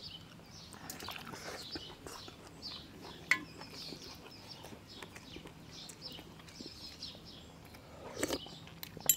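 Small birds chirping repeatedly in the background, with one sharp click a little over three seconds in.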